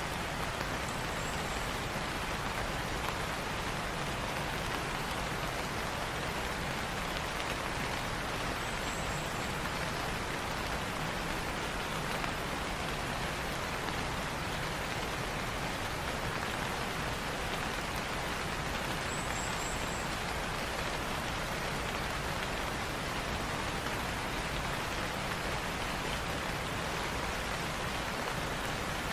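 Light rain falling steadily, an even hiss with no breaks.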